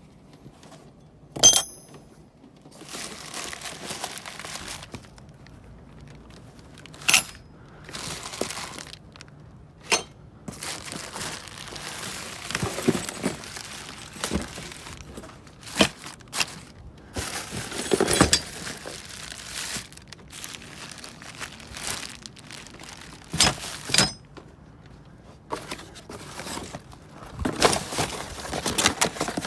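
Heavy metal door hardware (door locks, hinges and handles) clanking and clattering as it is dug through and tossed about in a dumpster: repeated sharp metallic knocks, some ringing briefly, over steady scraping and rustling.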